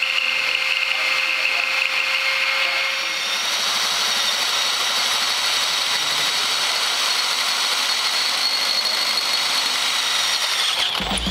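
Handheld power tool working steel, a steady high-pitched whine whose tone shifts higher about three seconds in and stops abruptly near the end.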